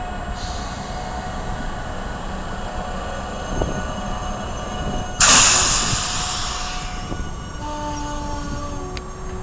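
South Shore Line electric commuter train rolling past close by: a steady rumble of wheels and running gear with faint squealing tones. About five seconds in a sudden loud hiss breaks out and fades away over about two seconds.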